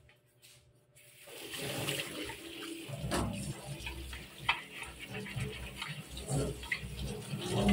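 Tap water running and splashing into a stainless steel sink over a plastic water-purifier filter housing being rinsed, starting about a second and a half in, with knocks and clicks from the plastic being handled.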